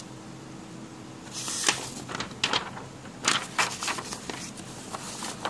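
Paper rustling as handwritten sheets on a clipboard are leafed through: a run of short swishes and crinkles starting about a second and a half in.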